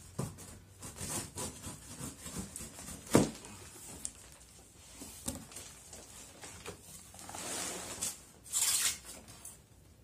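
Cardboard shipping box being opened: a pocket knife scratches through the packing tape and the flaps are pulled back. There are many small scrapes and clicks, one sharp knock about three seconds in, and longer scraping rustles near the end, the loudest just before the end.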